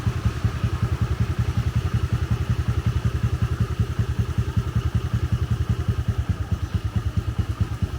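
Motorbike engine running steadily, its low exhaust beat pulsing evenly and fast without any change in speed.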